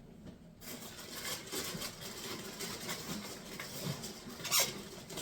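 Rustling and crinkling of plastic packaging and handling of parts while a meat grinder is unpacked, with a sharp tap about four and a half seconds in.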